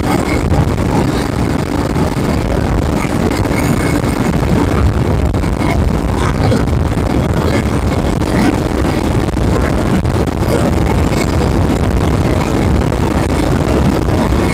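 1972 Moto Guzzi Eldorado police motorcycle's V-twin, enlarged to nearly 1000cc, running steadily under way, mixed with heavy wind noise on the microphone.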